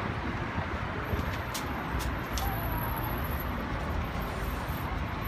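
Steady city road traffic noise: a low, even rumble of cars passing on a street.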